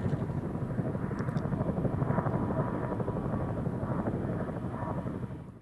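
Helicopter flying past, its rotors beating in a steady, rapid chop with engine noise, easing off slightly near the end.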